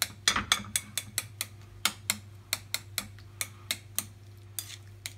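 Metal fork tapping and clinking against a bowl as it mashes avocado and mixes it with diced tomato, about four sharp clicks a second at an uneven pace.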